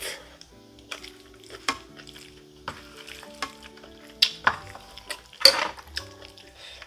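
A spoon stirring and scraping bibimbap rice and vegetables in a metal bowl, with short clinks and scrapes every second or so. The strongest scrape comes about five and a half seconds in.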